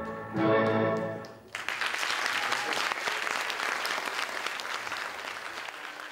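Classical ballet music ends on a final held chord about a second in, then audience applause breaks out suddenly and slowly dies down.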